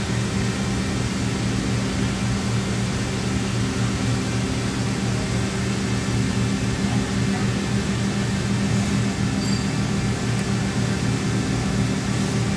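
Johnford HT-60-2D CNC lathe running under power with a steady hum: a low drone made of several even tones that holds without change in pitch.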